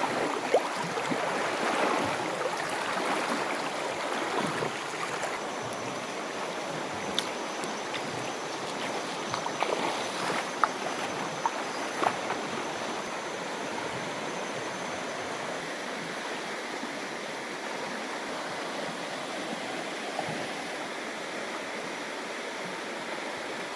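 Shallow rocky mountain river flowing with a steady rush of water, broken by a few brief knocks or splashes scattered through it.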